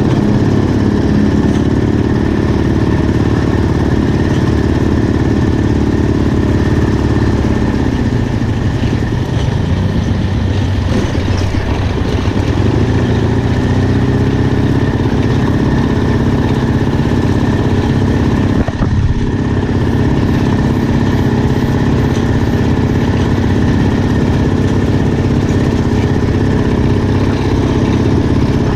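Motorcycle engine running steadily, heard from on the moving sidecar rig; its pitch sinks about eight seconds in and climbs again a few seconds later as the engine slows and picks up speed.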